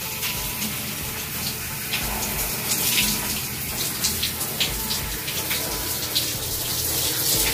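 Steady rush of water running from a faucet.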